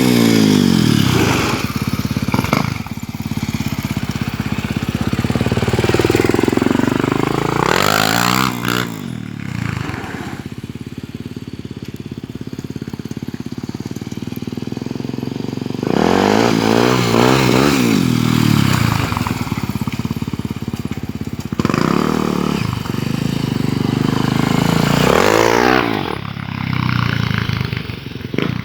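Honda XR 250 Tornado single-cylinder motorcycle revving hard and passing close by several times, about every eight seconds. The engine pitch swells and falls with each pass.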